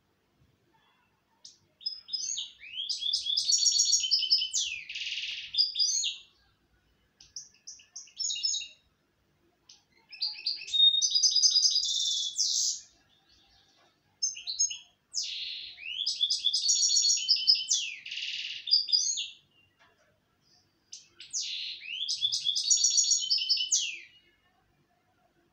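European goldfinch singing: four long phrases of rapid, high twittering, each several seconds long, with short pauses between.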